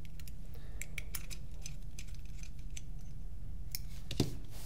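Small irregular metallic clicks of an Allen key turning and seating the frame screws on a paintball marker's frame, with one louder knock near the end.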